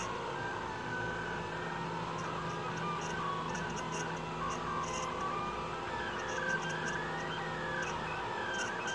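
Delta 3D printer printing: its stepper motors whine in tones that step and glide up and down as the arms move the print head, over a steady hum.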